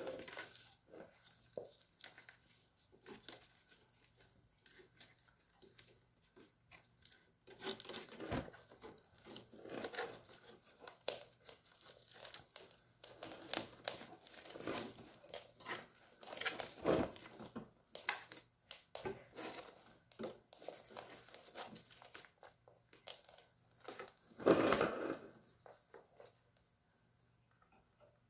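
Velcro straps being ripped open and pressed shut in short, irregular rasps while the buggy attachment's straps are fastened around a hoverboard, mixed with the handling of the frame. The loudest rip comes near the end.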